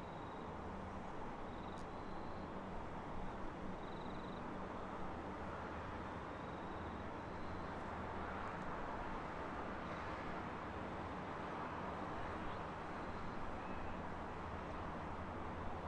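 Suburban electric train running slowly at a distance: a steady low rumble and hum, with a few short, high chirps over it in the first half.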